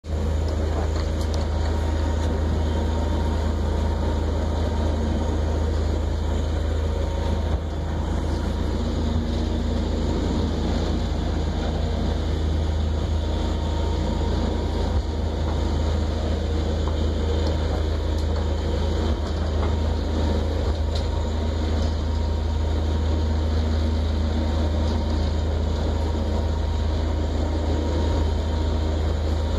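Inboard engine of a 1959 26-ft steel trawler running steadily under way, heard from inside the wheelhouse: a constant deep drone with a faint steady hum above it and a few faint knocks.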